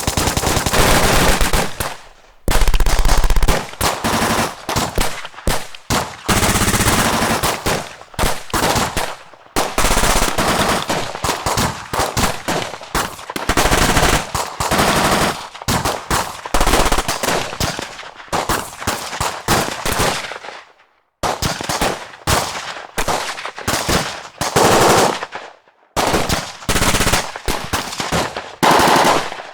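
Battle gunfire: bursts of rapid automatic fire mixed with single shots, in overlapping strings with short gaps, one brief break about 21 seconds in.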